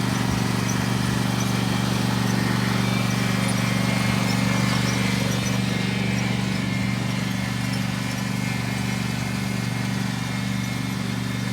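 A lawn mower's small engine running steadily.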